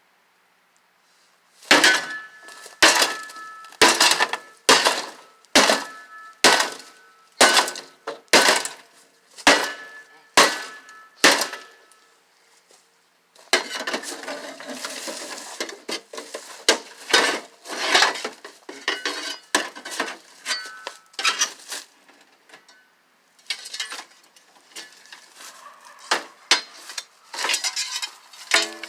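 A shovel striking an old, rusty microwave oven's sheet-metal body again and again: metallic clangs with a short ring, about one a second for the first ten seconds. After that comes a stretch of rattling and clattering, broken by more blows.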